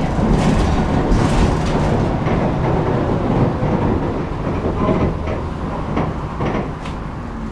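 Tram running on its rails, a steady low rumble that gradually dies down as it slows, with a few sharp clicks from the wheels and track in the second half.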